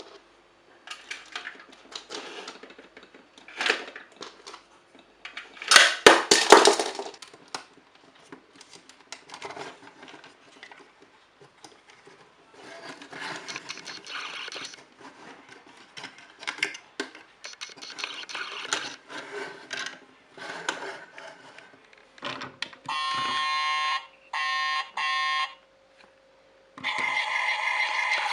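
Plastic toys handled and unpacked, with scattered clicks and rattles. Then a battery-operated toy gives three short, steady electronic alarm-like tones about two thirds of the way through, and a longer electronic sound starts just before the end.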